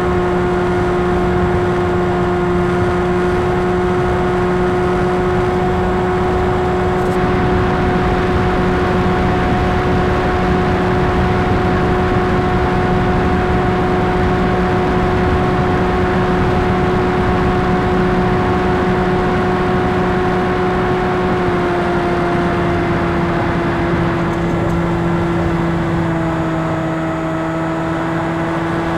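Electric brushless motor and propeller of an RC fixed-wing plane, heard from the onboard camera: a steady, loud hum over a rush of air. The hum drops slightly in pitch a little over two-thirds of the way through, as the throttle eases.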